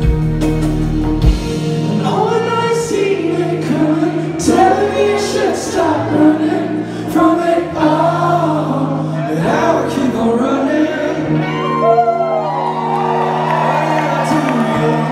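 Rock band playing live in a hall: electric guitars and held bass notes under sung vocals, with more than one voice singing. The beat drops out about a second in, leaving the voices over sustained low notes.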